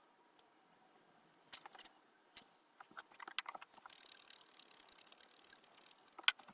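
Light handling sounds of small wooden box parts and flocking tools: scattered soft clicks and taps, with a faint hiss for about two seconds midway.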